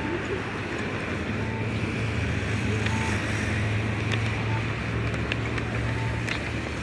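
Busy city street crossing: a steady hiss of traffic with a vehicle engine humming low through most of it, and a short electronic beep repeating about every second and a half.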